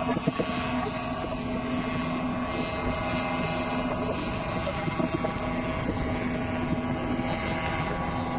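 Paramotor engine and propeller running at a steady pitch, with wind rushing over the microphone.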